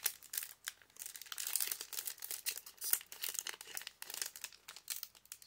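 Foil Pokémon booster pack wrapper crinkling and crackling as it is pulled and torn open at its crimped top, a quick run of crackles, thickest in the middle.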